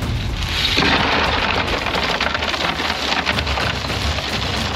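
Ice cubes poured from a plastic bag into a compartment packed with drink bottles: a dense rattle of cubes clattering against the bottles and each other. It starts about half a second in and runs on steadily.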